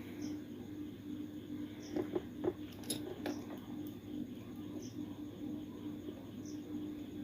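A few small clicks and taps from wires and tools being handled during bench work on a circuit board, bunched about two to three seconds in, over a steady low electrical hum.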